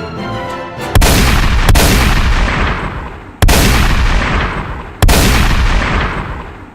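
Music for about a second, then three loud booms, each starting suddenly and dying away over about two seconds, with a short crack just after the first.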